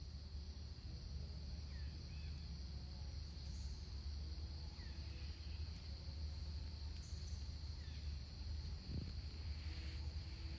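Insects keeping up a steady high-pitched drone, with a few short bird chirps over it and a low steady rumble underneath.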